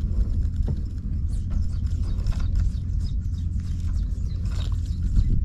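Low, wavering rumble of wind buffeting the microphone over the sea, mixed with boat noise. Faint ticks and scrapes come from handling a Shimano Stella SW 4000XG spinning reel and its line.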